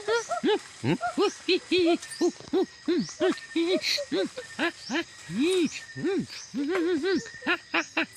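A fast run of short hooting calls, each rising and falling in pitch, about two or three a second.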